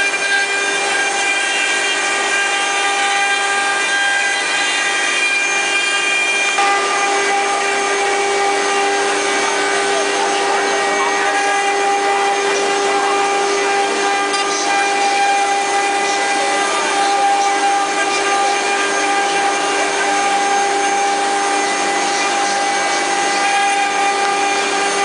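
A multi-spindle 4-axis CNC wood-carving machine runs with its router spindles cutting into wooden blanks. It gives a steady whine of several high tones over a loud rasp of cutting. The tones shift slightly about six seconds in.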